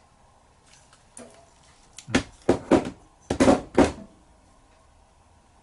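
Carburettor parts knocking against a stainless steel tray as they are handled: a quick cluster of about six knocks, starting about two seconds in and over within two seconds.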